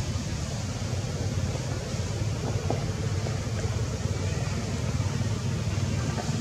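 Steady low rumble with an even hiss over it, unchanging throughout, with no distinct event standing out.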